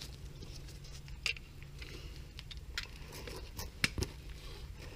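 Engine oil dripping from the oil pan drain into a full drip pan: a few irregular drips over a low steady hum, as the drain tails off at its end.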